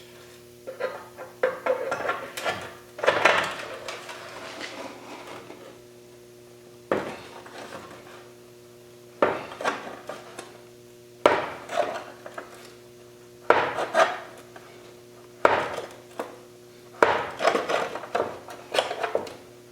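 Hammer blows on a steel quarter valance panel, straightening its bent profile: single metallic strikes every couple of seconds, with quicker runs of taps near the end. A steady hum runs underneath.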